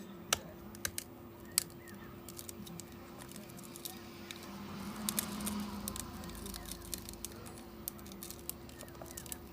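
Scattered sharp clicks and light taps of small repair tools and phone parts being handled during a phone display replacement, over a steady low hum.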